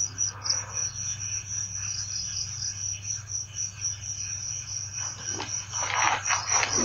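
Insects chirping in a fast, even high-pitched pulse, about five chirps a second, over a steady low hum, with a few louder brief noises near the end.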